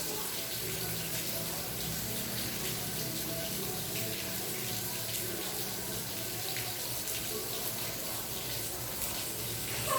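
Steady rain falling, a continuous even hiss of water.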